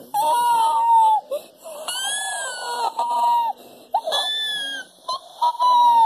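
A string of short, high-pitched squeaky fart sounds, several in a row with brief gaps, some rising and falling in pitch; the longest one comes about two seconds in.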